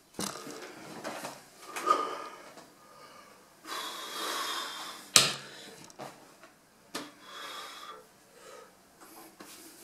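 A person's breathing and mouth noises, including a long blown-out breath through puffed cheeks about four seconds in. Two sharp knocks come about five and seven seconds in.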